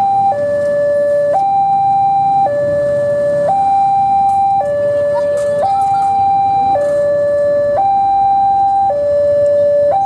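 Railway level-crossing warning alarm sounding its electronic two-tone signal, switching between a higher and a lower tone about once a second. The crossing's warning is active for an approaching train.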